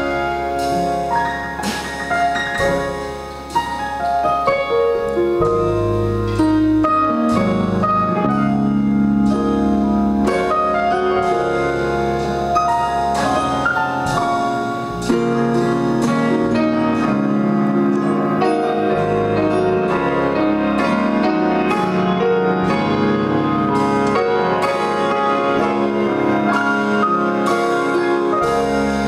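Instrumental piano music, notes changing steadily over low sustained bass notes.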